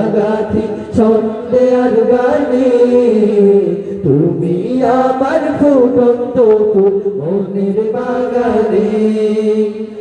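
A group of men singing a Bengali Islamic gojol together through stage microphones, unaccompanied, with long held and gliding notes.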